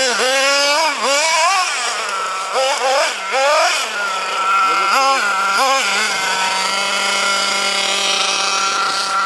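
Hobao Hyper ST truggy's small nitro engine revving up and down in quick bursts of throttle, then holding a steady pitch for the last few seconds. It was running lean from a fuel-pressure problem in the fuel tank and lines, as the owner found.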